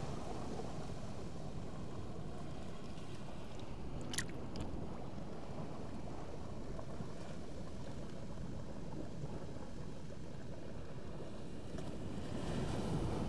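Steady low rumble of wind on the microphone mixed with shallow sea water lapping over the rocks, with a single sharp click about four seconds in.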